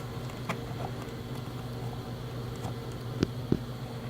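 Steady low hum in the room, with two sharp clicks about three seconds in, as multimeter test probes are moved between outlet slots to check for voltage.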